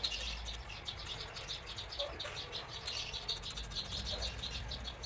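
A cricket chirping steadily, short high chirps at about eight a second.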